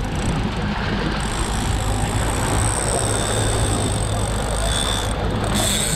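Outboard motor running steadily under way, with water rushing and splashing past the hull and wind noise, plus a steady high-pitched whine above it.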